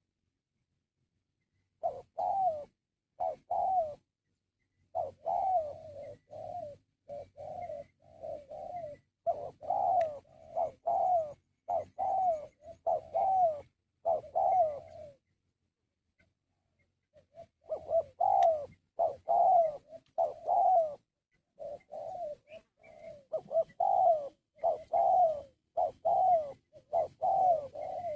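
Spotted dove (tekukur) cooing: runs of short, repeated coo phrases with brief pauses between them, falling silent for a couple of seconds at the start and again around the middle.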